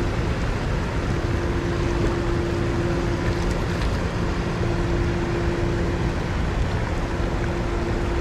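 Creek water rushing steadily over a shallow rocky riffle, with a steady low hum running under it throughout.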